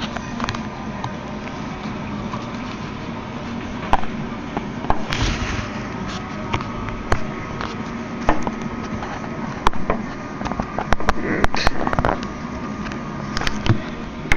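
Irregular sharp clicks and taps of a pry tool working the iPhone 3GS's front screen assembly out of its frame, coming thick and fast in the second half, over a steady hum.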